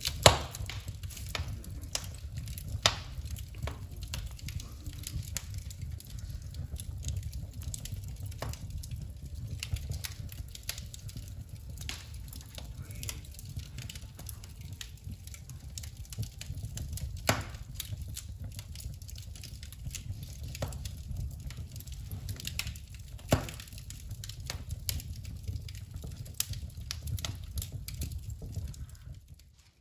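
Wood fire crackling in a fireplace: irregular sharp pops and snaps over a steady low rumble, the loudest snap right at the start.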